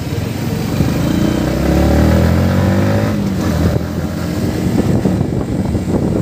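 Yamaha MT-15's single-cylinder engine accelerating away from low speed. The revs rise in second gear, dip at a shift into third about three seconds in, then climb again.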